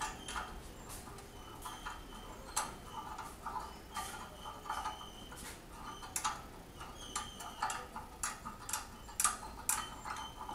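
Socket ratchet wrench clicking in short, uneven runs while bolts on the engine are undone, with light metallic clinks of the tool.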